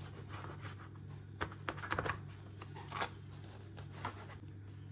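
Warm sponge cake being broken apart by hand and the pieces dropped into acrylic cups: scattered soft crackles and light taps, a few louder ones about a second and a half to two seconds in and again around three seconds, over a steady low hum.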